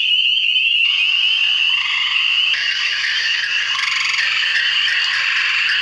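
A dense chorus of many frogs calling together: a continuous high-pitched calling, with more voices joining about a second in and again midway.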